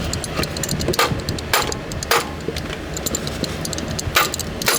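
Hammer tapping on the AC compressor clutch to start it onto its keyed shaft: about five sharp taps, irregularly spaced, with lighter clicks between.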